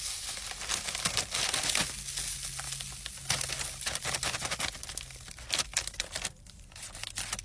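Crinkling and rustling of a small plastic seasoning packet and a paper fry bag as the seasoning is tipped from the packet into the bag.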